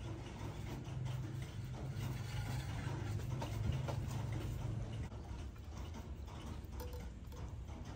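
Kitchen knives slicing thin fried egg sheets into strips, the blades tapping lightly and repeatedly on wooden cutting boards. A low hum sits under the first five seconds or so.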